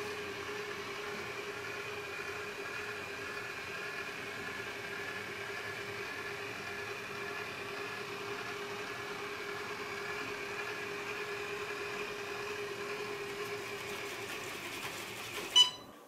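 Proscenic 820S robot vacuum driving back to its charging dock with its suction motor off: a steady whine from its drive, with a faint repeating warble. It cuts off with a short click just before the end.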